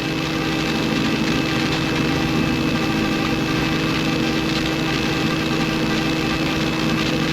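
Helicopter in flight, heard from inside the cabin: a steady engine and rotor drone with several constant whining tones.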